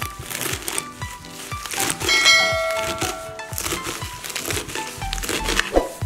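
Background music over a kitchen knife chopping fresh spinach on a plastic cutting board, a quick, repeated run of chops with a leafy crunch.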